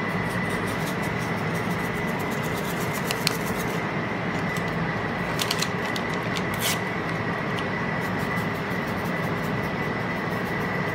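Steady room noise with a thin, constant high whine, and a few faint crinkles and ticks as a paper seasoning packet is shaken over meat in a foil roasting pan.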